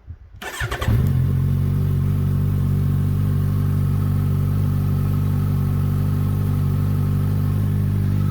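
Kawasaki Ninja 1000SX inline-four cranking on the starter for about half a second, catching about a second in, then idling steadily on a cold start. The slip-on silencer is removed, so it runs loud and deep.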